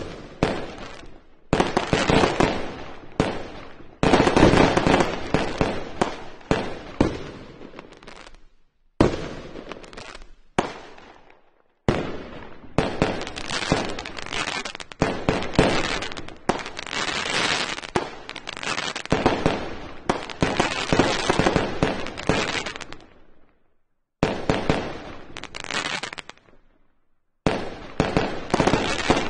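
Fireworks display: aerial shells bursting in rapid clusters of sharp bangs and crackle. The sound cuts off abruptly to silence a few times and then starts again.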